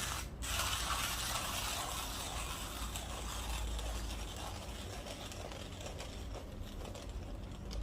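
Saint Anthony Industries Millwright hand grinder being cranked, its burrs grinding coffee beans fine for espresso with a steady gritty crunch. The grinding slowly grows quieter and thinner as the last beans of the dose pass through.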